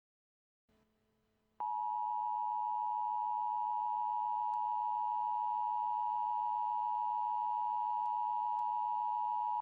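Emergency Alert System attention signal: two steady tones of 853 and 960 Hz sounded together. It starts about a second and a half in, holds unchanged for about eight seconds, then cuts off.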